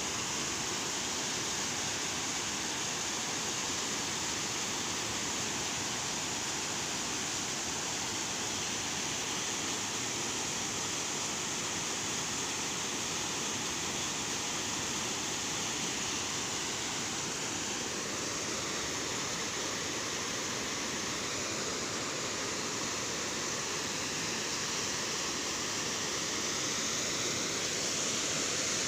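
Water pouring over a dam spillway and churning in the pool below: a steady rush of falling water that does not let up.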